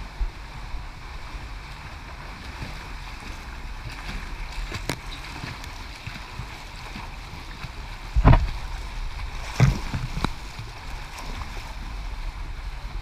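Water splashing from a backstroke swimmer's arm strokes and kicks, over a steady rushing noise, with a few sharper sudden splashes or knocks, the loudest about eight seconds in.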